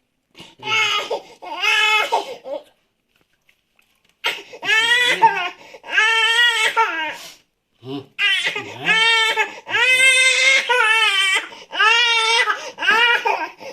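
Baby crying hard in loud, high-pitched wails about a second each: two cries, a pause of about a second and a half, then crying almost without a break.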